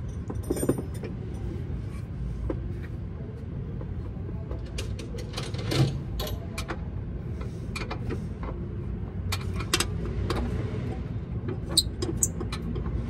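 Steady low hum of an idling engine, with scattered sharp metallic clinks and knocks over it.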